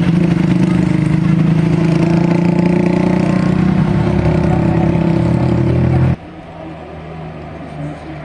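Loud, steady engine drone of a heavy vehicle running close by, cutting off abruptly about six seconds in to quieter road noise.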